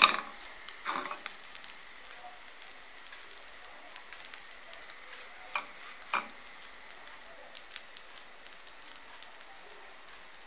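Oil sizzling steadily under a thick Moroccan pancake (mkhanfar) frying in a small non-stick pan, with a sharp knock at the start and a few lighter knocks about a second in and around six seconds in as the pan and pancake are handled.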